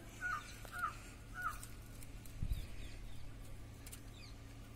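A bird calls three short notes in the first second and a half. A dull thump comes about two and a half seconds in, and scissors snip chilli stems with faint clicks.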